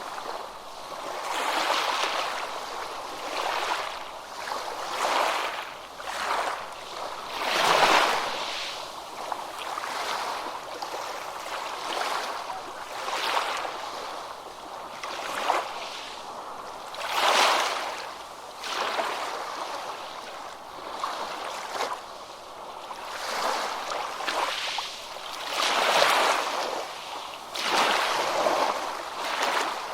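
Ocean surf on a beach: waves break and wash in one after another, swelling and fading every few seconds. The biggest surges come about a quarter of the way in, just past the middle, and near the end.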